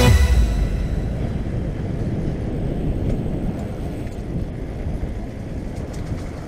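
Downhill mountain bike rolling down a concrete alley, heard through a helmet-mounted camera: a rough, steady rumble of wind on the microphone and tyres on the ground, slowly getting quieter.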